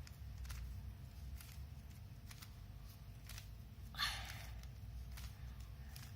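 Plastic Rubik's Cube being turned by hand: faint clicks and clacks of the layers, roughly once or twice a second, with one louder rasping turn about four seconds in. A low steady hum runs underneath.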